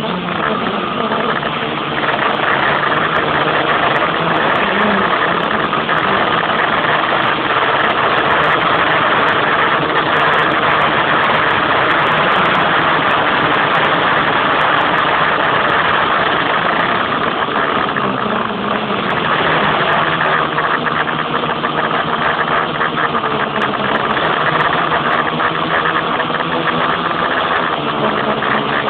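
Quadcopter's electric motors and propellers buzzing steadily in flight, the pitch shifting slightly now and then as the throttle changes.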